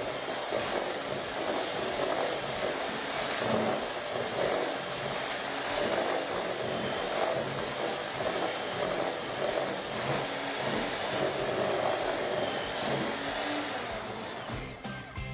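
Electric hand mixer running steadily, its beaters churning a butter, sugar and egg mixture in a stainless steel bowl as an egg is beaten in. It cuts off near the end.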